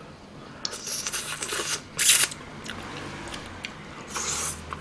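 Close-miked eating of pork spine stew meat: biting and tearing at the meat in three noisy bursts, the sharpest and loudest about two seconds in.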